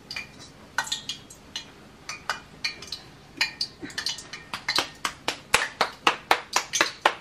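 Sharp taps and clicks, a few scattered at first, then a quick, fairly steady run of about four a second through the second half.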